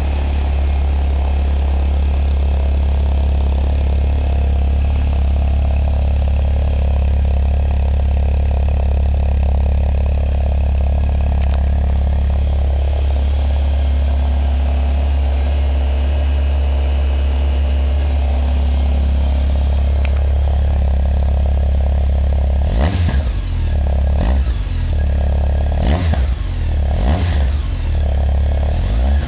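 Honda CB1300 inline-four motorcycle engine idling steadily, with the strange noise from its exhaust tip (muffler end piece), a part the owner means to have replaced. From about 23 s in, the throttle is blipped several times in short revs.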